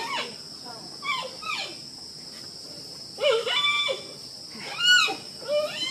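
Giant panda calling: several short, high-pitched bleating calls that fall in pitch, spaced a second or two apart, over a steady high insect-like whine.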